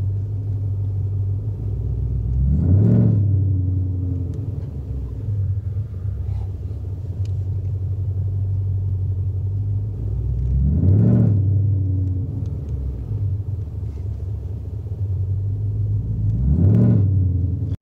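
Supercharged Coyote V8 of a 2018 Mustang GT idling, heard from inside the cabin. Its revs rise briefly and fall back three times, about 3, 11 and 17 seconds in, the last as the car starts to roll.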